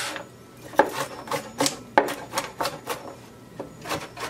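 A DEIK 8-inch stainless steel chef knife chopping onion on a wooden cutting board: quick, uneven chops about three a second as the blade rocks through the onion and knocks the board.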